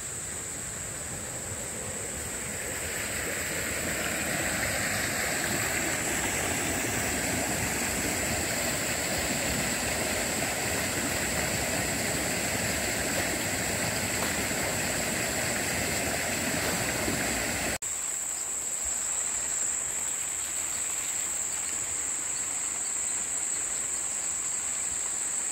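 Creek water rushing over rapids, swelling over the first few seconds and holding steady, over a steady high-pitched drone of insects. About 18 s in the rushing cuts off, leaving quieter surroundings where the insect drone stands out.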